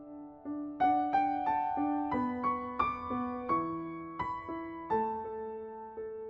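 Gentle background piano music: a soft repeated note, then about a second in a louder melody of single struck notes that climbs and falls before settling on a repeated note.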